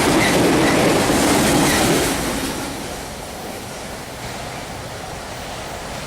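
CSX autorack freight train rolling past at speed, its wheels clacking on the rails. About two seconds in, the rolling noise drops away to a fainter, steady rumble.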